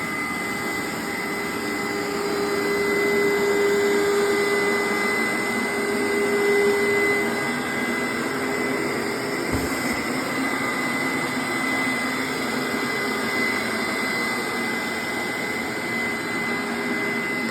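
Hoover SteamVac Dual V carpet cleaner running on its wash cycle: a steady motor noise with a high whine. A lower tone in it drops away about seven seconds in, and there is one brief low thump a couple of seconds later.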